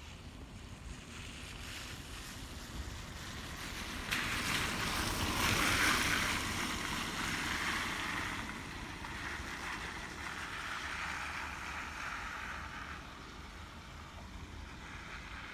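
Distant jet airliner's engines: a broad rushing roar that comes up sharply about four seconds in, peaks around six seconds, then slowly eases off.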